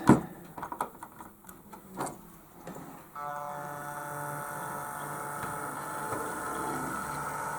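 Electric motor of an OO gauge Class 08 model diesel shunter whining steadily as the locomotive runs slowly on the track. It starts about three seconds in, after a few light clicks.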